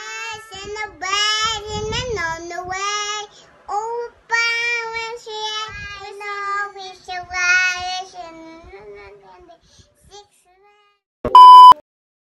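A child singing a melody in a high voice, with held and sliding notes, which stops after about nine seconds. Near the end, a short, very loud beep tone.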